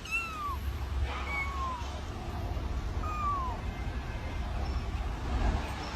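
Kitten meowing three times, short high-pitched meows that fall in pitch, about a second and a half apart, over a low rumble.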